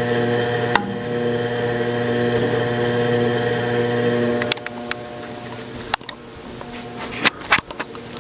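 Harbor Breeze Marco Island ceiling fan motor running with a strong steady electrical hum, the excessive humming that makes this fan noisy. About four and a half seconds in, with a click, the hum drops off sharply to a faint hum, and a few sharp clicks follow near the end.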